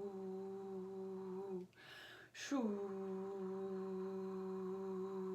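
A woman's voice intoning long held 'shoo' tones in light language. Each starts with a hissing 'sh', dips briefly in pitch and then holds one steady note. The first note stops about a second and a half in, and a second one follows after a short breath.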